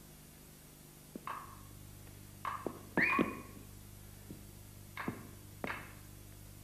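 A series of about six short knocks or thuds on a stage. Some carry a brief ringing tone, and the loudest, about three seconds in, has a short high squeak.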